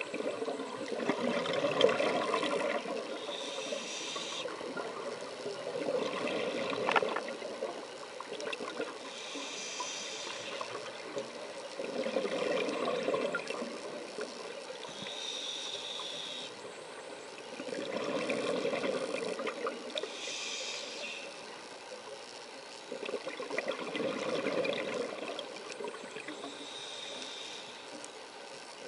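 A scuba diver breathing through a regulator underwater: a hiss on each inhale and a burst of bubbling on each exhale, about five slow breaths at one every five to six seconds.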